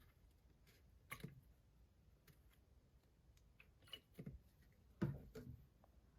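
Near silence with a few faint, short clicks and taps from small objects being handled, about one second in and then three more close together after four seconds.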